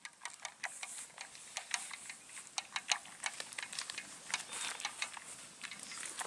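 A spoon stirring in a metal mug, clinking quickly and irregularly against the metal sides.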